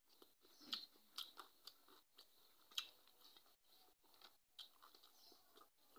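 Faint eating sounds: a person chewing, with fingers mixing rice against a steel plate. Scattered small clicks and crunches come at irregular moments.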